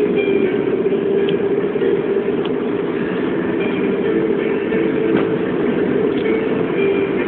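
Steady road-traffic noise: vehicle engines running without a break.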